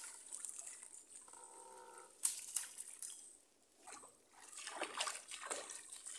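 Water splashing and trickling in a shallow mud pool as a net trap is pulled up out of it, then water running and splashing back over the mud in several uneven bursts.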